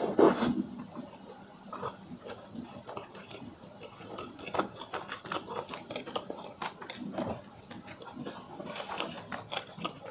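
Close-miked chewing and wet mouth sounds of a person eating: irregular sticky clicks and smacks, loudest right at the start.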